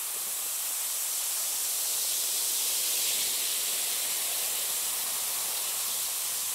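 Large bath bomb fizzing in a glass dish of water as water is poured over it: a steady, dense, high hiss of bubbles that starts suddenly.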